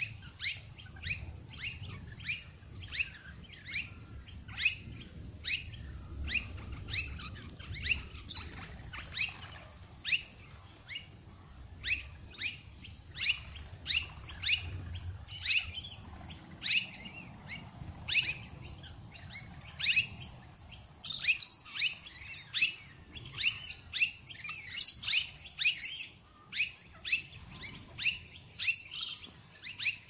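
Flock of rainbow lorikeets calling: many short, high-pitched screeching calls, growing denser and louder about two-thirds of the way through.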